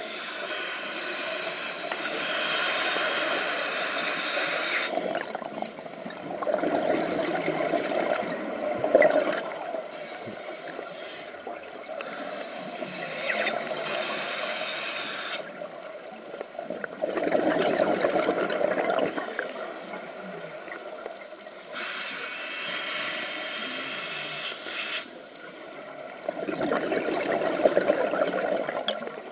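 Scuba diver breathing through a regulator underwater: a long hiss of air on each inhale, then a burst of bubbling as the breath is let out, three full breaths in slow rhythm.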